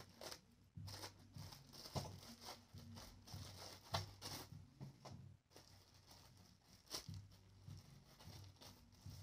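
Faint rustling and crinkling of a small clear plastic packaging bag being handled and torn open, with scattered small clicks.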